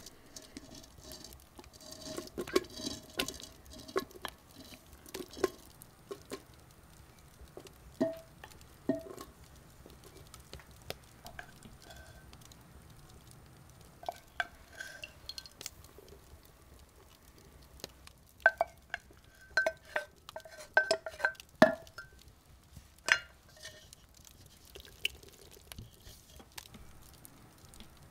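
A spoon knocks and clinks against a dish while mixing. The sharp strikes come in irregular clusters, each ringing briefly at the same pitch, with quieter stirring between them. They are busiest a couple of seconds in and again past the middle.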